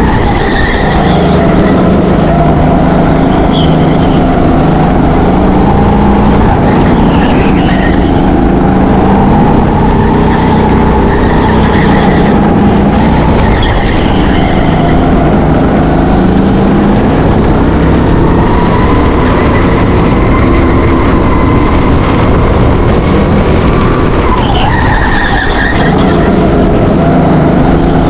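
Go-kart engine heard onboard at speed, its note rising and falling as the kart accelerates down straights and lifts for corners, with a marked drop and climb about three-quarters of the way through. Short tyre squeals are heard in several corners.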